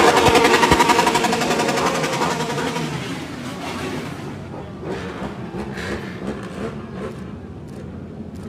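Sport motorcycles riding past in a parade, several engines running together, loud at first and fading over the first few seconds as the group moves off.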